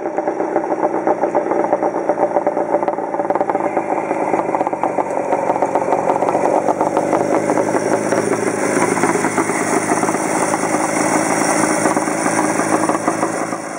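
Vintage Scott motorcycle's liquid-cooled two-stroke twin engine running as it is ridden, with a fast, even beat that stays steady throughout.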